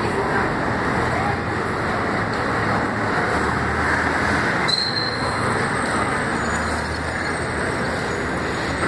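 Steady city street traffic noise, a continuous wash of passing vehicles, with a short high chirp about five seconds in.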